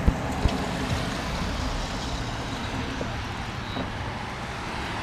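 Steady rush of wind and tyre noise from a bicycle riding on wet pavement, with two sharp clicks in the first half second.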